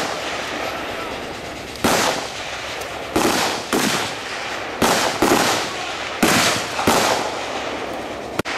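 Several rifles fired in single shots on a firing range: seven shots in about five seconds at uneven spacing, each trailing off in an echo.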